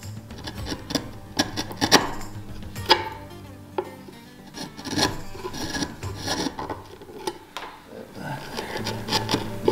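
Bench chisel paring and scraping a wooden face-frame joint by hand, in irregular short strokes with sharp clicks, trimming a corner so the joint will sit flush.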